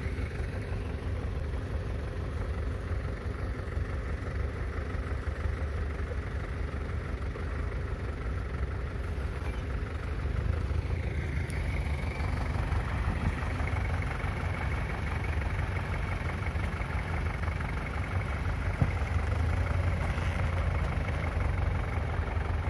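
Tractor diesel engine running steadily, from the Kubota stuck in soft paddy mud. About ten seconds in, its pitch rises and it gets a little louder.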